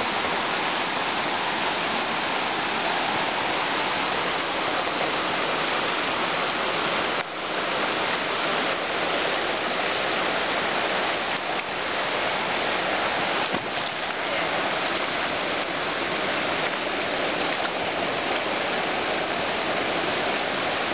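Steady rush of water flowing over rocks in a shallow stream, with a brief dip about seven seconds in.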